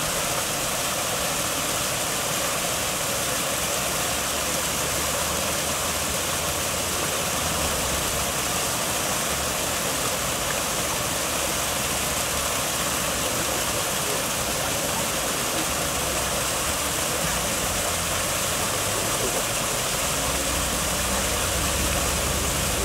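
Steady rush of water spilling over rocks in a small cascade, with a low rumble coming and going underneath.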